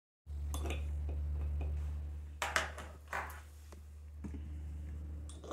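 Steady low hum that cuts off abruptly near the end, with a few short, light clicks over it.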